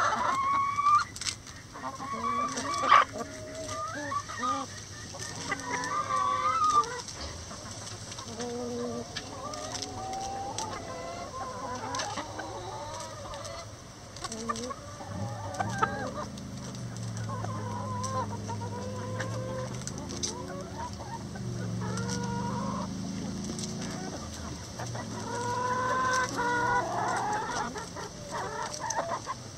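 A flock of chickens clucking and calling over one another, with lower, longer calls in the middle and a few sharp clicks in the first several seconds.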